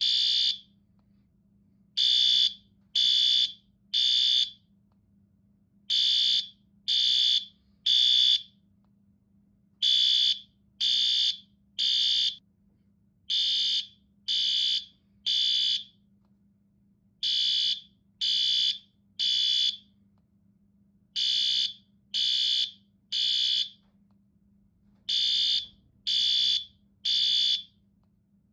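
Fire alarm sounding high-pitched beeps in groups of three, about a second apart, with a short pause between groups: the temporal-three evacuation signal.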